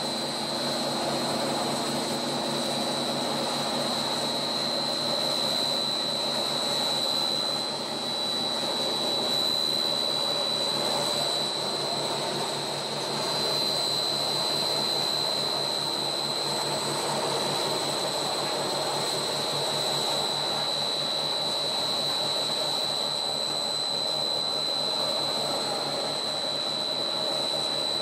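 A monolayer blown film extrusion line running: steady drone from the extruder's electric drive motor and gearbox, with a constant high-pitched whine over it.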